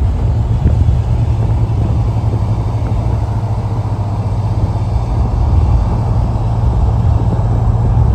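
Steady low rumble of cars cruising at road speed, engine, exhaust and tyre noise together, with a Mk3 Toyota Supra running alongside. The level swells slightly now and then but there is no sharp revving.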